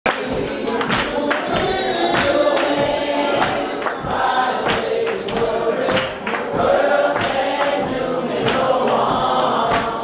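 Church congregation singing a gospel song together, with a steady beat of sharp hand claps running under the voices, about three a second.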